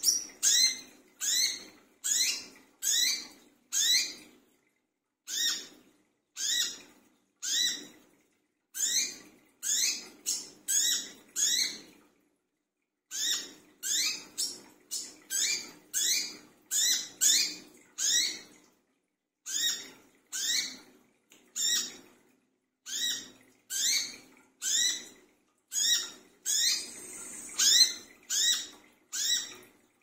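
Male brown-throated sunbird (kolibri kelapa) giving sharp, high chirping calls about once a second, in a long series broken by two short pauses.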